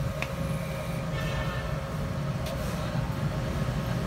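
Grundfos electric pump motor running steadily on a Mitsubishi F700 inverter under PID control, a low rumble with a steady electrical whine over it.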